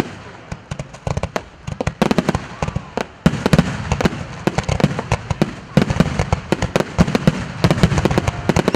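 Fireworks display: a rapid barrage of loud aerial shell bursts and crackling bangs, thickening about three seconds in into near-continuous explosions.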